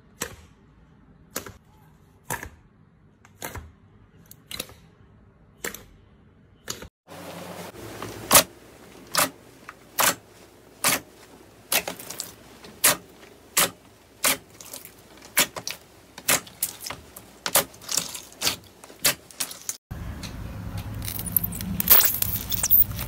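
Hands pressing and stretching glossy slime, making sharp wet clicks and pops, about one a second at first, then louder and about two a second after a cut about seven seconds in. Near the end, jelly-cube slime being squeezed gives a denser crunching crackle.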